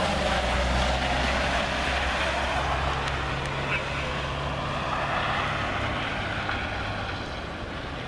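A car driving up a snow-covered street: a low engine hum and tyre noise that slowly fade toward the end, over wind noise.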